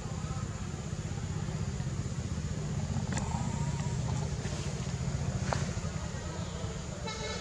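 Low, steady rumble of an engine running, with a couple of faint clicks about three and five and a half seconds in.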